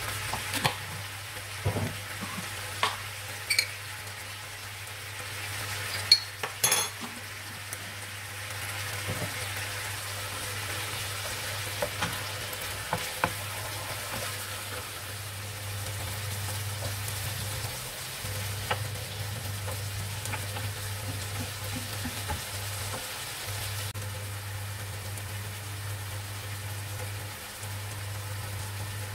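Chicken pieces sizzling in oil and ghee in a frying pan while a wooden spatula stirs them, with a run of sharp knocks and taps against the pan in the first seven seconds or so and a few later. A steady low hum runs underneath.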